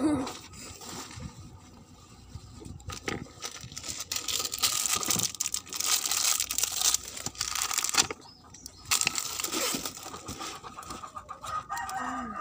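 Clear plastic bag of screws crinkling as it is handled, loudest in the middle stretch, with a chicken clucking in the background.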